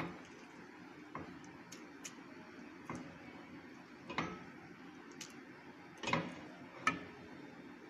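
A handful of light clicks and knocks spaced a second or two apart: a utensil against a stainless steel pot as cooked glutinous rice is dropped into milk.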